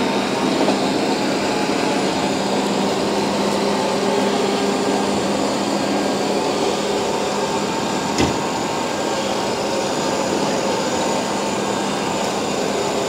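Shark IQ robot vacuum running on carpet: a steady suction-motor whir with a low hum, and a single brief knock about eight seconds in.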